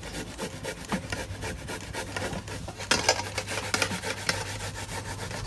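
Apple pieces rubbed quickly on a metal box grater standing in a steel pot: a continuous run of rapid rasping scrapes, with a few louder strokes about three seconds in.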